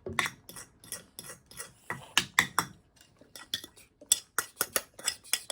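Cutlery and dishes clinking at a table: a rapid, irregular series of light knocks and clinks.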